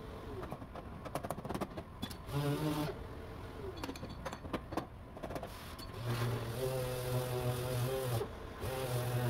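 Orbital sander with 120-grit paper on a car's front fender, running in short runs with a steady hum and stopping and restarting several times. In the pause between runs, near the middle, comes a scatter of sharp knocks and taps from a body hammer.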